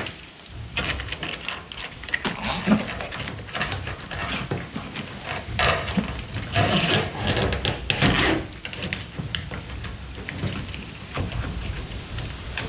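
Corrugated plastic split conduit over boat cables rubbing and scraping as it is handled and pushed into an aluminium boat's gunwale, in irregular bursts, loudest a little past the middle.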